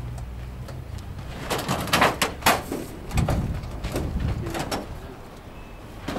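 Hinged steel-framed reflector door of a parabolic solar concentrator being worked open by hand: a run of metal clanks, rattles and scraping, loudest about two seconds in.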